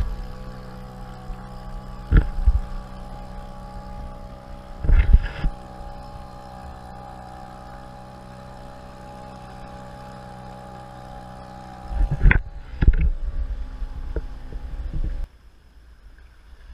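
Small Mercury outboard motor pushing an inflatable dinghy, running steadily at one even pitch, with a few loud thumps over it. The motor sound cuts off suddenly near the end, leaving only faint lapping and hiss.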